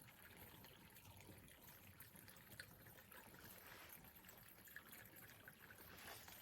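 Near silence: a faint hiss with a few faint ticks.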